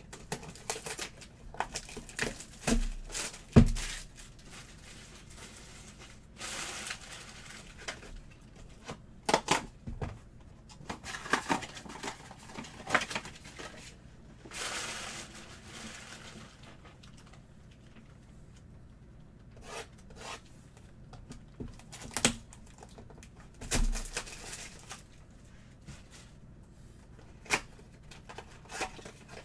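Trading card pack wrappers being torn open and crinkled while cards and the box are handled, with scattered clicks and knocks. A sharp knock about three and a half seconds in is the loudest sound, and two stretches of tearing about a second long come near 7 s and 15 s.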